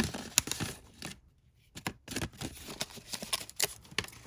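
Packaging rustling and crinkling as an item is handled and unwrapped by hand, with a run of sharp clicks and taps.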